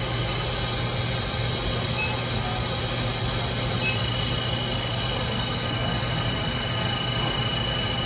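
A steady mechanical hum with a few faint high-pitched tones over it, unchanging throughout.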